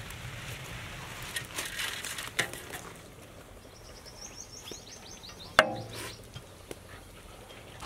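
Metal paddle working biryani rice in a large cooking pot: soft scraping and light knocks, then one sharp metal clang that rings briefly a little past halfway.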